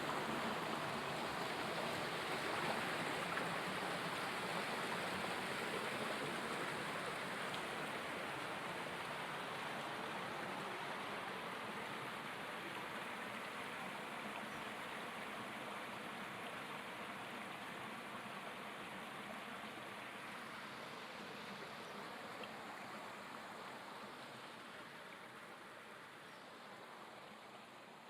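River water rushing steadily, an even hiss that slowly fades away towards the end. No hippo calls are heard.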